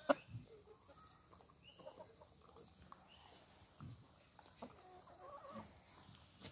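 Hens clucking softly while feeding, scattered short calls from a flock, with two sharp clicks right at the start and a few faint high chirps now and then.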